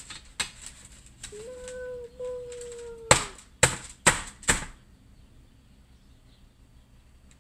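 Someone humming one held note, then four sharp knocks about half a second apart, like hard taps on a plastic or metal kitchen utensil.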